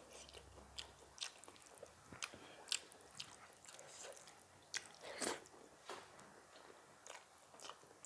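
Close-miked chewing and crunching of food in a person's mouth, with sharp crisp bites, one loud crunch about two and a half seconds in and a longer crunch around five seconds in.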